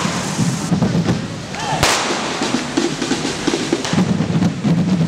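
Correfoc spark-spraying fireworks hissing and crackling steadily, with a sharp bang a little under two seconds in.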